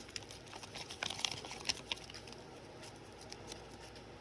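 Small plastic packaging being handled, crinkling, with light clicks, mostly in the first two seconds.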